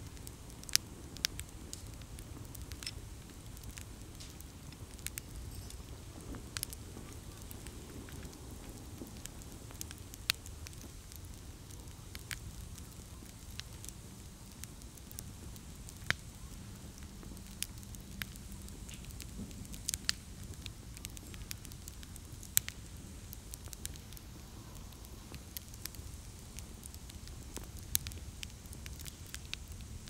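Wood campfire in a fire stand crackling, with sharp pops coming at irregular moments over a low steady rumble.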